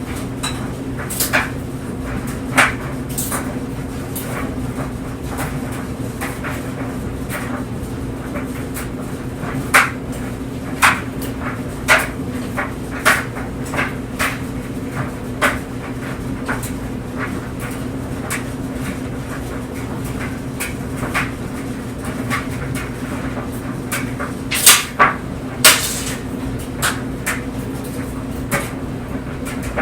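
Clothes dryer running with clothes tumbling in the drum: a steady low hum with irregular knocks and clicks as items strike the drum, the louder knocks bunching together around ten to sixteen seconds in and again about twenty-five seconds in.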